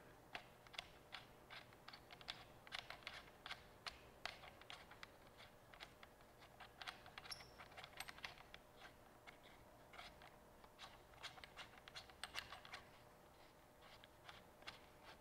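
Faint, irregular clicking and small scrapes of a threaded metal mounting knob being turned by hand to screw a device onto a pole clamp; the clicks thin out near the end.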